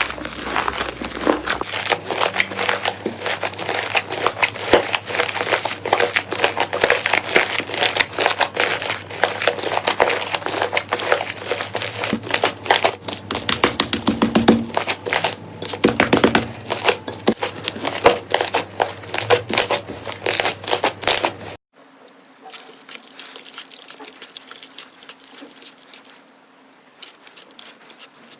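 Slime being squeezed and worked by hand close to the microphone, giving dense crackling and clicking pops. About three-quarters of the way through, the sound cuts off abruptly and gives way to quieter, sparser clicks.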